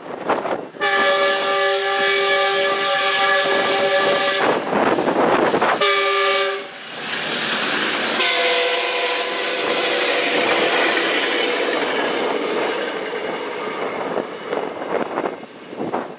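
Metrolink F125 passenger locomotive's multi-note air horn sounding for the grade crossing: a long blast, a short one about six seconds in, then a long blast that comes in lower in pitch as the train goes by. Under it the rush and wheel clatter of the passing bilevel coaches, fading near the end.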